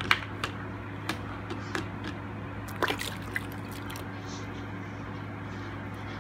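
A metal ladle scooping watermelon rind pieces and liquid out of a stainless pot and pouring them through a canning funnel into a glass jar: several sharp clinks of metal on the pot and jar in the first three seconds or so, with liquid trickling and a steady low hum underneath.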